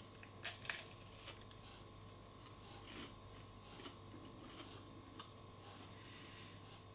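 A filled macaron handled over a ceramic plate and broken open by hand: two sharp clicks about half a second in, then a few faint crackles, in near silence.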